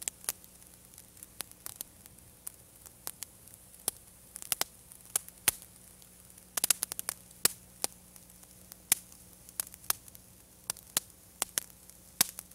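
Wood fire in a wood-burning stove crackling, with irregular sharp pops, a quick cluster of them about halfway through, over a faint steady hum.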